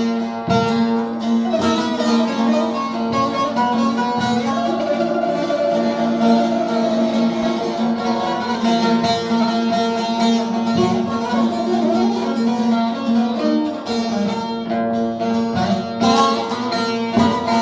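Instrumental music: a plucked string instrument playing a melody over a steady drone.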